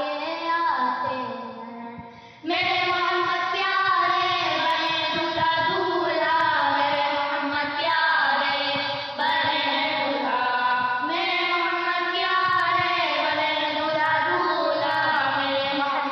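Voices singing a naat, an Urdu devotional poem, in long held notes that slide between pitches. The singing fades briefly, then comes back louder about two and a half seconds in.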